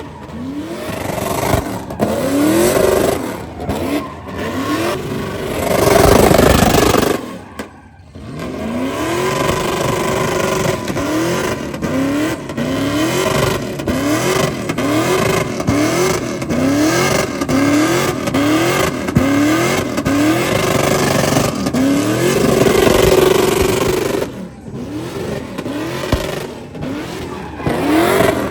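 Engine revving hard in repeated rising sweeps, about one a second, over a steady hiss of squealing tires: a vehicle doing a burnout. The sound drops out briefly about eight seconds in.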